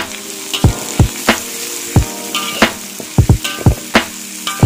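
Sliced shallots and garlic sizzling in hot oil in a wok, stirred with a spatula that scrapes and knocks against the pan about every half second.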